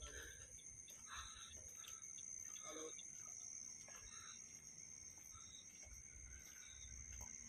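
Near silence: faint outdoor background with a steady thin high-pitched tone and a few faint scattered blips.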